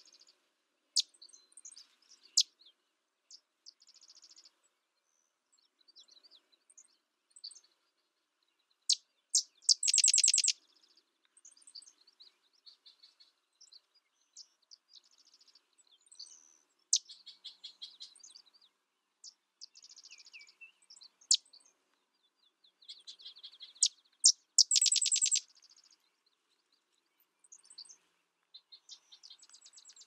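Sedge wren singing: a couple of sharp, dry chips leading into a fast, loud chattering trill, given twice about fifteen seconds apart, with fainter chips and short calls in between.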